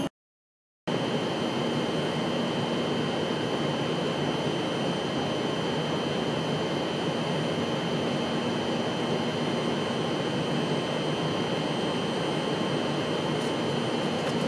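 Steady mechanical hum of a passenger train standing at the platform, its ventilation and air-conditioning running, with a thin constant high whine over it. It begins after a brief silence of under a second at the start.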